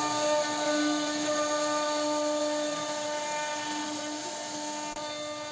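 CNC router spindle running with a steady high whine as its bit carves grooves into a wooden door panel. The sound slowly grows fainter.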